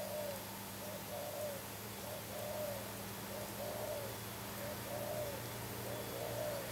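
Spotted dove cooing: a regular series of short, arched coos, about one a second.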